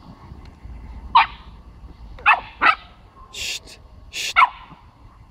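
Pomsky puppy (Pomeranian–husky mix) barking at ferrets: four short, sharp yaps, two of them in quick succession, with a few brief hissing bursts in between.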